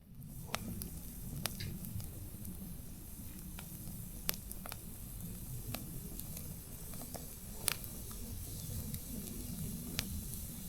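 Wood fire crackling: irregular sharp pops, a few seconds apart to several a second, over a steady low rumble.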